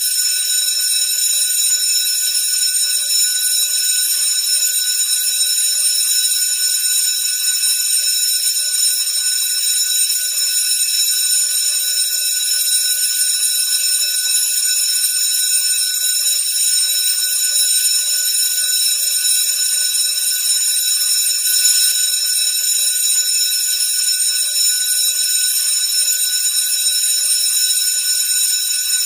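School bell ringing continuously, a loud, steady, high-pitched ring with no pause or change.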